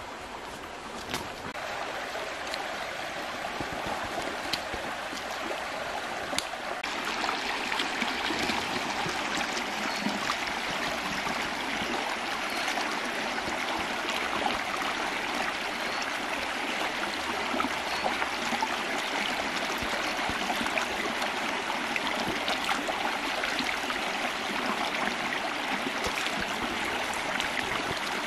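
Shallow stream running over rocks, a steady rush of water that grows louder about seven seconds in, with a few light clicks in the first seconds.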